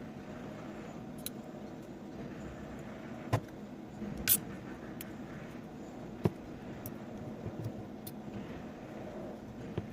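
Nickel connecting strips being pried off the cells of a cordless vacuum cleaner's lithium battery pack: a few short, sharp clicks and snaps, the loudest three about three, four and six seconds in.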